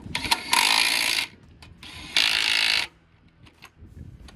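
Power wrench run in two short bursts, about a second and a half apart, spinning wheel lug nuts.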